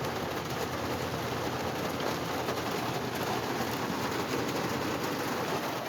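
Heavy rain drumming steadily on a car's roof and windows, heard from inside the car during a thunderstorm.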